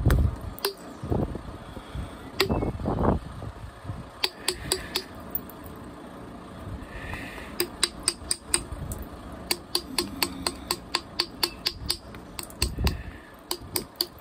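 Flintknapping: a small copper billet striking the edge of a stone flake held on a leather pad, giving runs of sharp clicking taps, several a second. A few dull handling thuds come in the first seconds.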